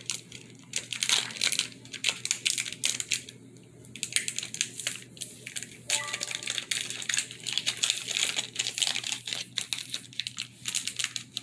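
Foil wrapper of a Pokémon card booster pack crinkling and tearing as it is opened by hand, with many quick, irregular crackles.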